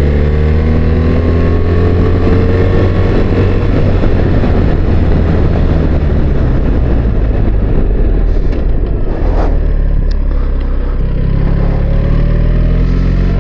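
BMW R1300GS boxer twin engine running under way, heard through a helmet-mounted microphone over heavy wind and road rush. Its pitch climbs over the first few seconds as the bike accelerates, then eases off and settles lower near the end.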